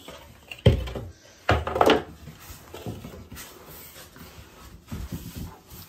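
A large cardboard box being handled: a heavy thump about a second in, a rustling scrape just after, then a few lighter knocks.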